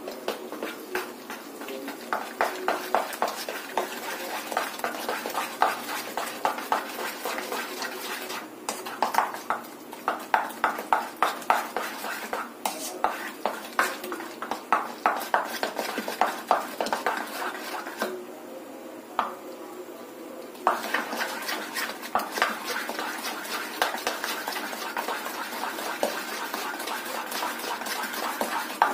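Idli batter being mixed by hand in a steel bowl: repeated stirring strokes against the bowl, about three a second, with a short pause about two-thirds of the way through.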